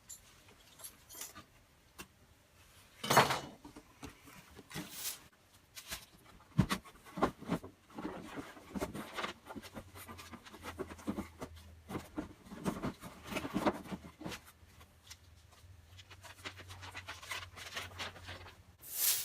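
Scattered clicks, knocks and rustles of room activity, with a louder knock about three seconds in and another near the end, and a faint low hum through the second half.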